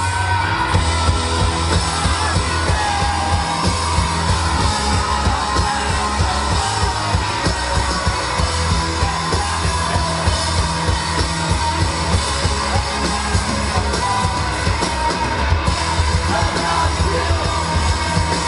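Rock band playing loud live: drums and amplified instruments, with shouted vocals, heard from within the audience.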